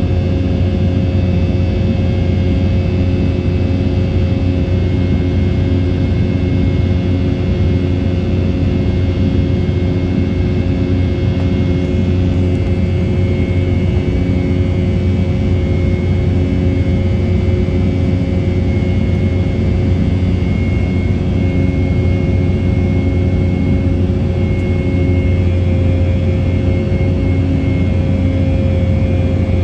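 Cabin noise of an Embraer 190 jet: its GE CF34-10E turbofan engines running steadily, a deep drone with a constant whine, joined by a second, higher whine about halfway through.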